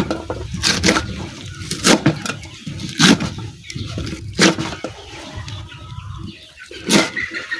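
A knife chopping soft spinach leaves and stems on a chopping board: about six sharp chops, roughly one a second at first and then further apart, over a low rumble.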